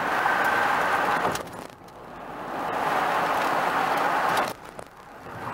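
Road and wind noise inside a vehicle moving at highway speed: a steady rushing hiss that dips about two seconds in, swells again, and falls away near the end.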